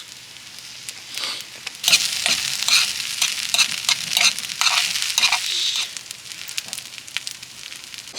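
Food sizzling in a hot pan, with sharp crackles throughout. The sizzle swells about a second in and is loudest from about two to six seconds, then dies down.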